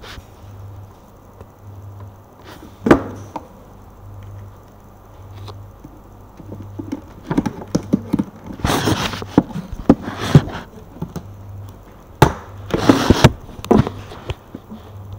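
Handling noise from a handheld camera being moved about: a sharp knock about three seconds in, then clusters of rustling and knocking in the second half, over a faint pulsing low hum.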